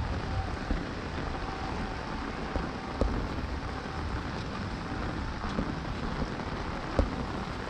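Heavy monsoon rain pouring steadily, an even hiss, with a couple of sharp taps about three seconds in and again near the end.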